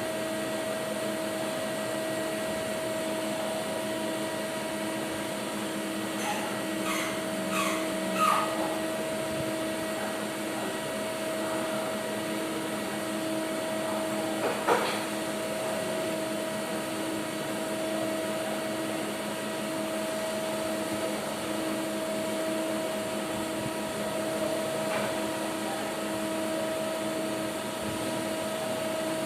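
Steady whirring hum of a CNC lathe that is powered up but halted at a program stop, with a few steady tones in it. A few light clicks come about six to eight seconds in and once more near fifteen seconds.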